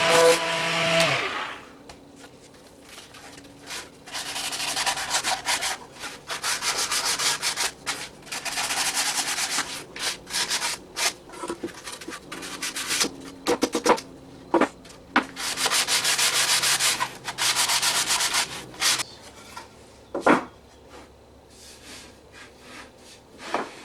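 A power tool's motor hums and winds down about a second in. Then comes sanding, sandpaper rubbing on wood in bouts of a few seconds each, with a few knocks as parts are handled near the end.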